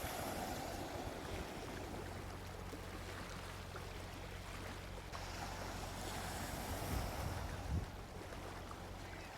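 Gentle sea waves washing onto a beach, a steady surf that swells and recedes, with a couple of low thumps near the end, about seven and eight seconds in.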